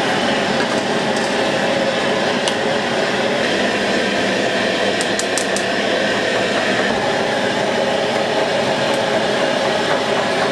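Steady loud roar of a high-output gas wok burner under a wok of boiling soup, with a few faint high clicks about five seconds in.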